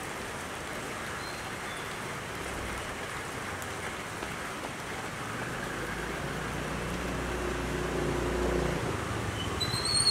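Steady outdoor hiss on a wet street, with a low rumble that builds through the second half and cuts off about a second before the end.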